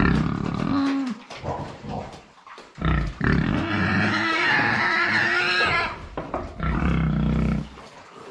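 Pigs squealing and grunting: a short call at the start, a long high squeal of about three seconds, and a shorter low grunting call near the end. Hungry pigs screaming for their feed, as the farmer explains it.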